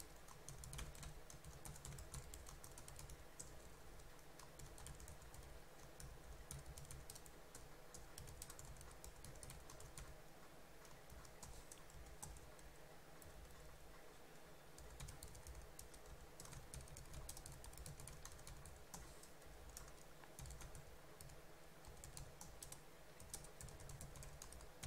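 Faint typing on a computer keyboard: an irregular run of key clicks.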